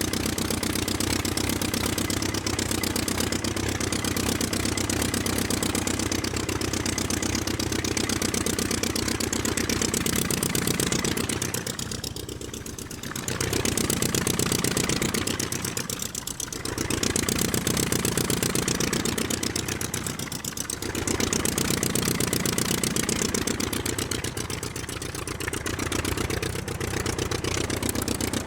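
Aircraft engine running steadily with a rapid, even pulse. Its loudness dips briefly several times in the second half before recovering.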